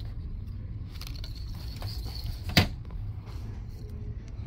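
A single sharp knock about two and a half seconds in, over a low steady hum.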